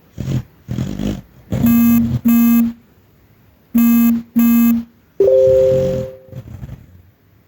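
A small dog vocalising in its sleep while dreaming. Two short breathy huffs come first, then two pairs of short muffled woofs at a steady pitch, then a longer, breathier whine that trails off.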